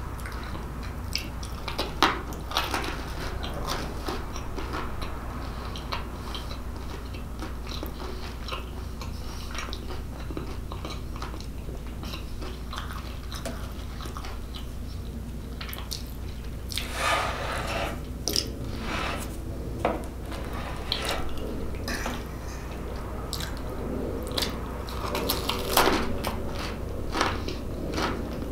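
Close-up chewing and mouth noises of a person eating pull-apart cheese bread dipped in sauce, with scattered short clicks and taps. The sounds come in busier bursts a little past the middle and again near the end.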